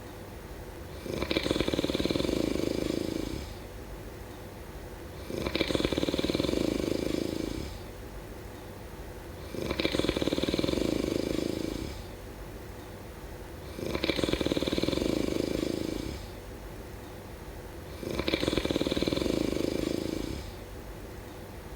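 A sleeper snoring steadily, one snore about every four seconds, each lasting about two seconds, five in a row.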